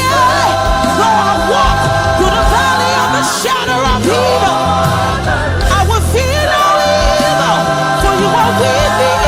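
Gospel choir singing long held, wavering notes over a band with a steady bass line.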